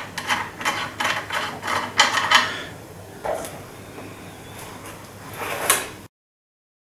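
Handling noise of a PCP air rifle being worked on a padded table: a quick run of clicks, rubs and light knocks from the metal barrel end over the first couple of seconds, a softer stretch with a single knock, another knock as the rifle is moved, then the sound cuts out abruptly.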